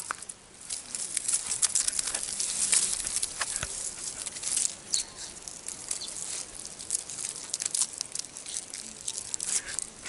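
Dry grass, reeds and leaf litter crackling and rustling in dense, irregular scratchy bursts, busiest in the first few seconds.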